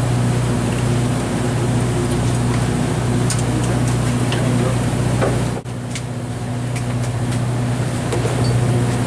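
Steady low hum of a fishing party boat's onboard machinery running, with a few faint clicks; the sound drops out abruptly for a moment a little past halfway.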